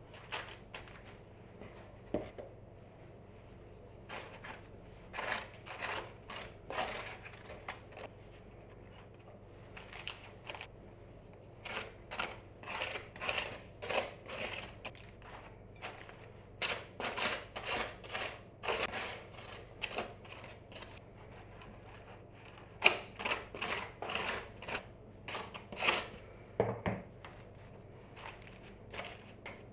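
Crisp kitchen handling sounds in irregular bursts: a spoon scooping and scraping cream from a bowl and spreading it over thin, crisp baked Napoleon cake layers, which crackle as they are lifted and stacked.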